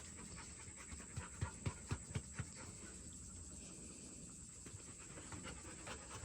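A dog panting, with a quick run of sharp clicks between about one and two and a half seconds in.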